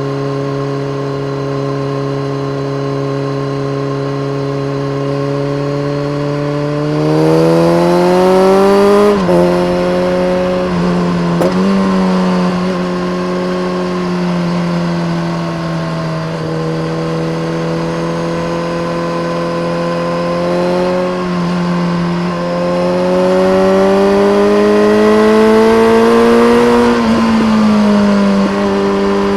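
BMW K1300R inline-four motorcycle engine through a full Akrapovic race exhaust with a dB killer, under way. It holds a steady cruise, then pulls harder about seven seconds in, its pitch rising until a sharp drop at a gear change. It settles again, then climbs in pitch once more for several seconds and drops back near the end.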